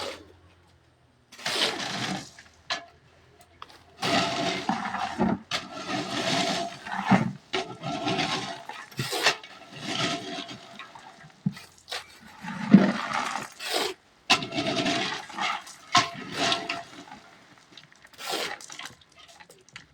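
Wet concrete being worked by hand for casting: repeated gritty scraping and sloshing in irregular bursts a second or two long, with short pauses between.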